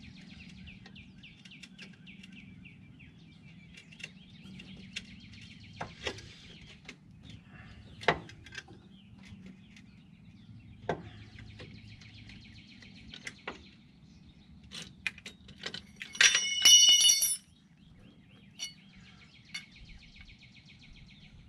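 Scattered clicks and knocks of hand tools and brake parts being handled during a brake pad change, with birds chirping in the background. About sixteen seconds in, a loud high-pitched squeal with several overtones lasts about a second and cuts off.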